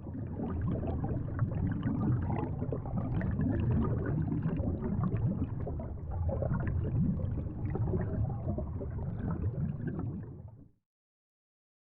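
Water sound effect: a steady churning, gurgling rush of water that runs for about ten seconds and then stops abruptly.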